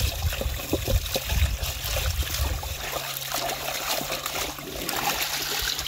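Running water, trickling and splashing in a steady rush, with a steady low hum under it from about two seconds in.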